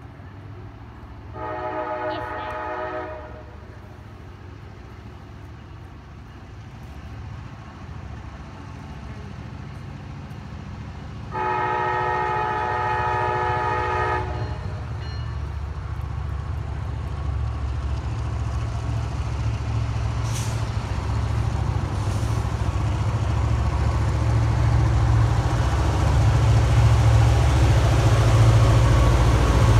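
CSX EMD GP38-2 diesel locomotive sounding its multi-chime air horn twice, a blast of about two seconds soon after the start and a longer one some ten seconds later. Its 16-cylinder two-stroke diesel engine then rumbles louder and louder as it approaches, working hard to pull a local freight.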